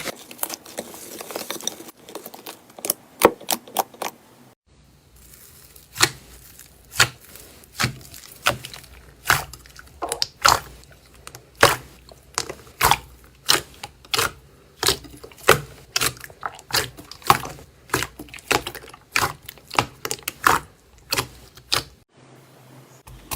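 Slime being pressed and squeezed by hand, giving a run of sharp crackles and pops, roughly two a second, with a softer stretch near the start.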